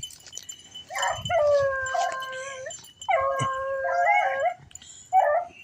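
Rabbit hound baying on scent: two long drawn-out howls, then a short yelp near the end.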